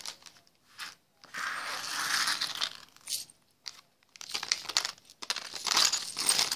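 A handful of small metal and acrylic charms clinking and rattling against each other as they are scooped up by hand and put into a plastic bag. The bag crinkles for about two seconds a second in, and a dense run of clinks fills the second half.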